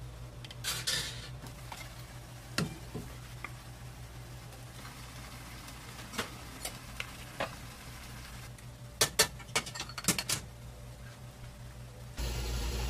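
Scattered clinks and scrapes of serving tongs and spoons against plates and steel side-dish trays while food is dished out, over a steady low kitchen hum. A louder steady rushing noise starts suddenly near the end.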